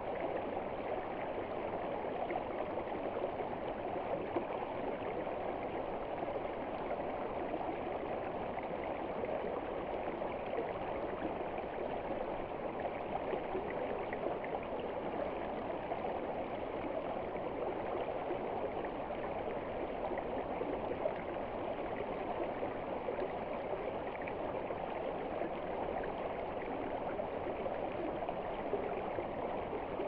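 Shallow stream running over rocks: a steady, even rush of water with no change throughout.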